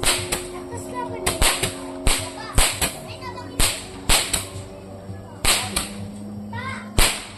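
Handheld fireworks being fired into the sky, giving sharp pops at uneven intervals, roughly two a second. The loudest comes near the end.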